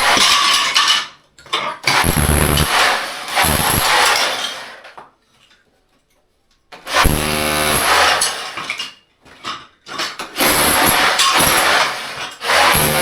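Power tool running in several bursts with short pauses between them, its motor pitch showing clearly in one of the runs.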